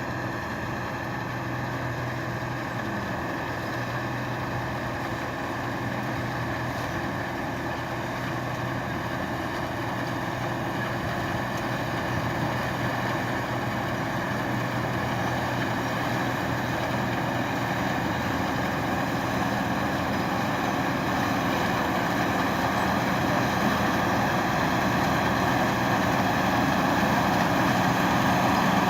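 New Holland 8080 combine harvester running steadily as it threshes rice: a continuous mechanical drone with a steady engine tone, gradually growing louder.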